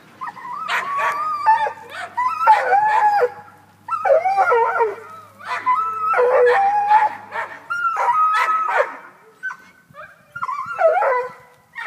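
Black and tan coonhound baying at a cat it has chased up a tree, the hound's treeing bay. It gives about seven drawn-out, wavering howls in a row with short breaks between them.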